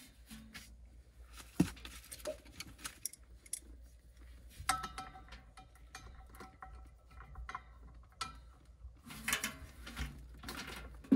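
Light metallic clicks, taps and clinks of a hex key working the set screw on a furnace blower wheel's hub, with a sharp knock about one and a half seconds in and a brief metallic ring about five seconds in.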